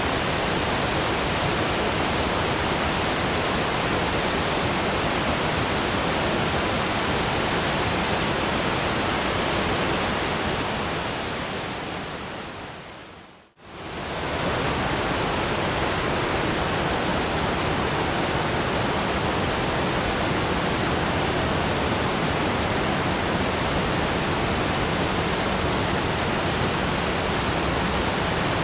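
Steady brown noise, an even hiss like rushing water. About halfway through it fades out to near silence, then quickly fades back in.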